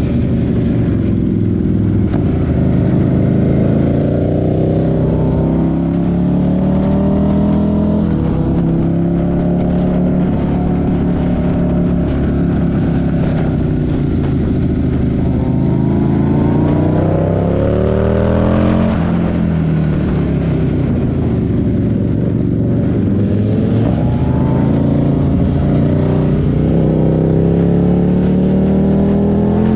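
Buell 1125CR's V-twin engine under way, its note rising and falling with throttle and gear changes. A long climb in pitch drops sharply about two-thirds of the way through, and it climbs again near the end.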